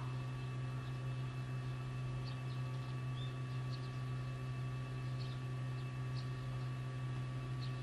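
Steady low hum of a dairy cattle barn, with a scatter of faint, brief high chirps.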